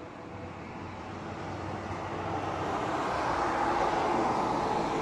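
A car driving past on the street. Its tyre and engine noise swells steadily to a peak about four seconds in.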